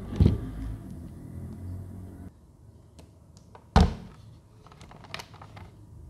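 Small plastic humidifiers being handled on a table: two sharp knocks, near the start and about four seconds in, with a few light clicks and taps in between. A low hum in the background cuts off abruptly a little after two seconds.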